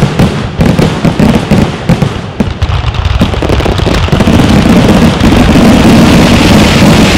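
Aerial fireworks going off: a rapid string of sharp bangs and crackles for the first few seconds, thickening about four seconds in into a dense, continuous crackling barrage.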